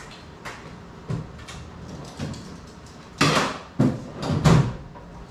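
Knocks and clatter of objects being handled and put down at a workshop bench, with three louder scraping bangs in the second half.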